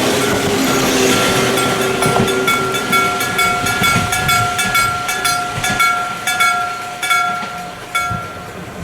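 Electric level-crossing bell, an aluminium-alloy bell struck by an electric hammer, ringing about twice a second over the fading rush of a passing train. The strokes stop near the end as the crossing clears.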